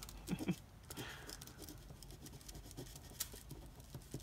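A pen scratching lightly on a paper card in short strokes as a word is written by hand.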